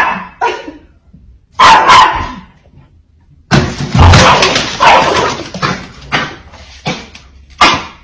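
A dog barking repeatedly: several loud, short barks, with a busier run of sound in the middle.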